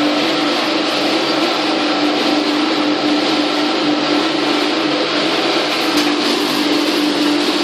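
Hammer-mill pulverizer for herbal powder running: a loud, even whir with one constant tone held throughout.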